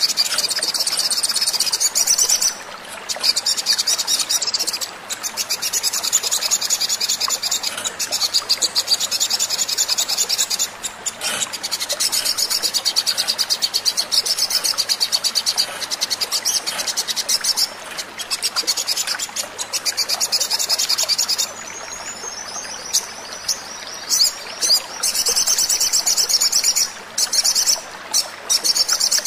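Olive-backed sunbird song: rapid high-pitched trills in long runs of several seconds, broken by short pauses, with a quieter stretch about three-quarters of the way through.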